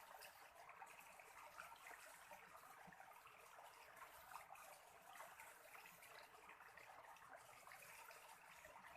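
Faint, steady trickle of stream water.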